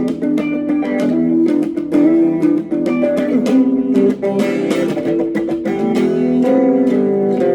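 Guitar music: a run of plucked and strummed notes in an improvised piece.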